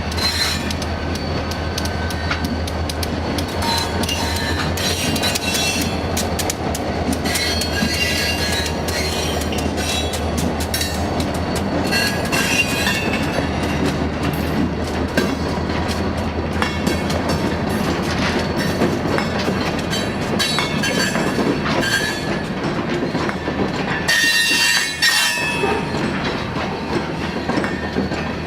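Diesel freight train of the Goderich-Exeter Railway passing slowly, its locomotive engine running with a steady low hum under the rumble and clatter of the wheels and cars. High-pitched wheel squeal from the rails comes and goes, loudest near the end.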